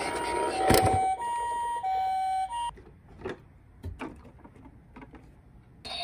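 Toy ambulance's electronic two-tone siren sounding the Japanese ambulance high-low 'pee-po' pattern, each tone held a little over half a second, after a first second of rushing noise with a sharp knock. About halfway through the siren stops, leaving only faint clicks.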